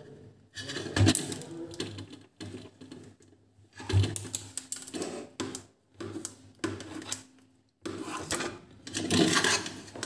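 Insulated wire being stripped and threaded into white plastic switch boxes while the plastic switch plates are handled: irregular plastic clicks, knocks and rustles. Two sharper knocks come about one and four seconds in.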